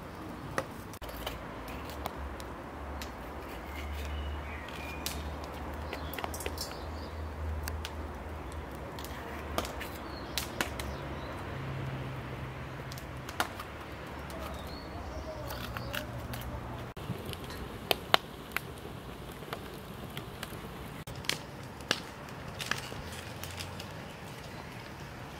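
Outdoor ambience: birds chirping faintly now and then over a low steady rumble, with scattered sharp clicks and knocks throughout, the loudest about eighteen seconds in.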